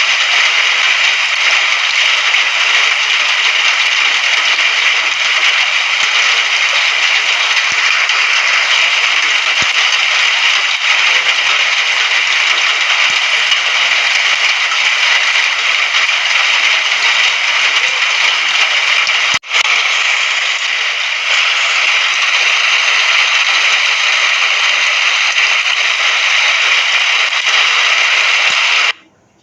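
Steady rain, a continuous hiss with a crackly patter. It cuts out for an instant about two-thirds of the way through, and for about a second near the end.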